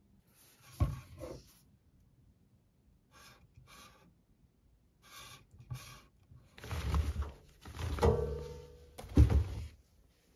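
A series of short thuds and knocks from household objects being handled, a few separate ones early on and a denser run in the second half, the loudest near the end; one about eight seconds in rings briefly.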